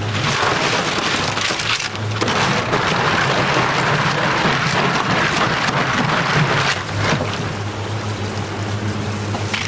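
Tap water running and splashing onto abalone in a stainless steel sink as they are rinsed and scrubbed, with a steady low hum underneath.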